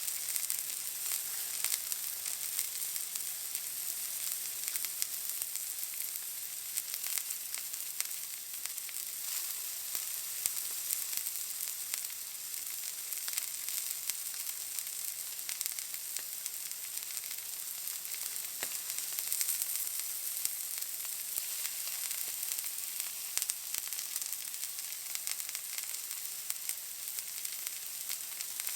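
Steak searing in a hot pan: a steady fat sizzle with a dense scatter of fine crackles and pops.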